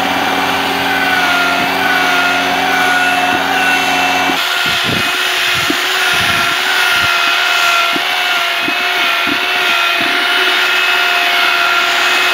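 Electric drill with a paddle mixer running steadily, stirring thick sealant in a plastic bucket, its motor whine wavering slightly under the load. About four seconds in, the low hum underneath drops away and a few scattered low knocks come through.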